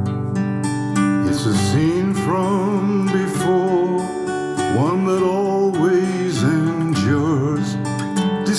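Recorded music played back through JBL LSR305 studio monitor speakers: strummed acoustic guitar chords, with a wavering melody line coming in over them about a second in.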